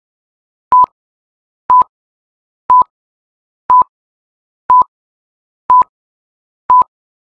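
Film-leader countdown beeps: a short, steady electronic beep once a second, seven times, with silence between.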